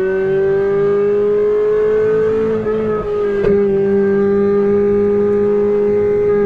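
Ferrari 458's flat-plane V8, fitted with a Brilliant aftermarket exhaust, pulling hard with its note climbing slowly. About three and a half seconds in a sharp click comes as it shifts up and the pitch drops a little, then it holds a steady high note.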